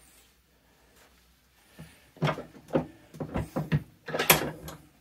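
A bench vise being loosened around a jet pump housing: after a quiet start, a run of metal clunks and scrapes from about two seconds in, the sharpest one near the end.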